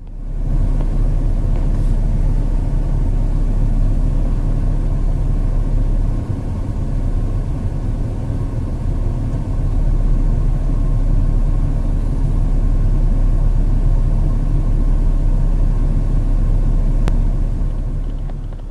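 Steady, loud, low rumble of motor vehicle engines, heavy at the bass end, cutting off at the end.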